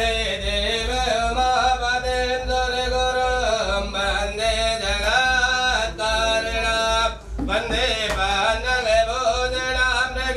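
A voice chanting Sanskrit hymns in a melodic recitation, holding long notes and gliding between pitches, with short pauses for breath. A steady low hum runs underneath.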